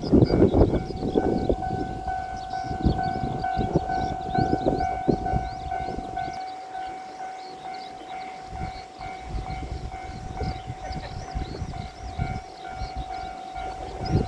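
Japanese level-crossing alarm ringing steadily at one pitch, over an irregular low rumble that is heaviest in the first few seconds.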